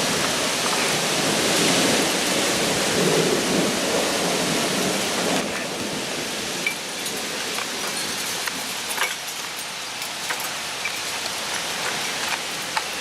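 Heavy thunderstorm rain pouring down with a low rumble, louder for the first five seconds. It then suddenly drops to a quieter steady rain with scattered sharp taps.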